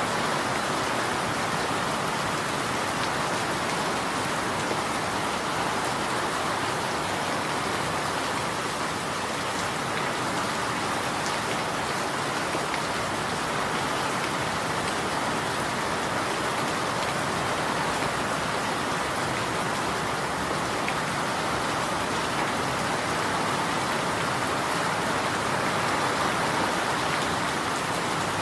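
Steady rainfall pattering on surfaces, an even hiss with faint scattered drops.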